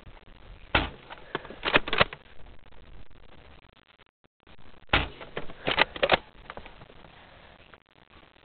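Nerf Longshot CS-6 dart blaster being worked and fired: two groups of sharp plastic clacks, one about a second in and another about five seconds in.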